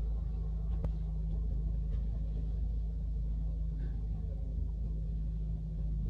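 Steady low rumble, with one faint click about a second in.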